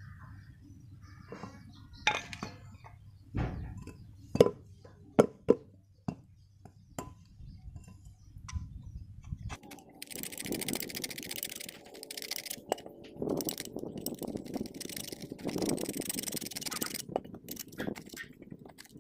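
Metal parts of an old tractor pulley drum clinking sharply as they are handled. About halfway through this changes to a continuous, uneven scraping as a metal rod gouges caked dirt out of the inside of the drum.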